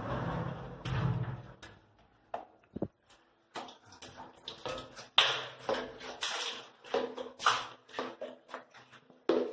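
Water from a bucket thrown against a soaped glass shower enclosure to rinse it, with a splashing rush at first, then irregular splashes, knocks and clatters.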